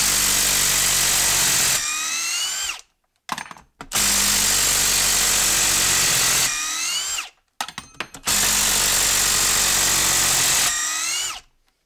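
Ryobi brushless impact driver backing out three long Timberlok screws, one after another. Each time it hammers for about two seconds while breaking the screw loose, then spins freely with a whine that rises and falls away as the trigger is let go. A few clicks come in the gaps as the bit goes onto the next screw.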